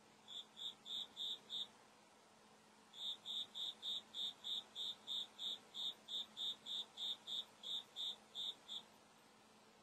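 A cricket chirping indoors: short, high-pitched chirps about three a second, a brief run of five, a pause of about a second, then a longer steady run that stops about a second before the end.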